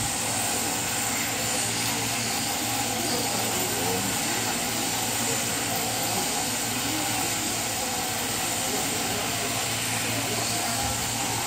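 Sheep-shearing handpiece running steadily as it clips through a sheep's fleece: a continuous hiss with a low hum underneath.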